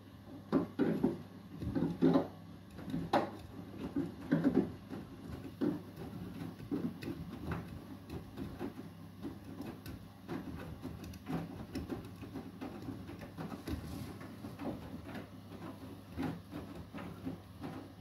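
Beko WTK104121W front-loading washing machine on its Eco 40 cycle: the drum turns slowly and wet laundry tumbles and splashes inside it. The soft thuds are irregular, loudest in the first few seconds and gentler after that, over a steady low hum.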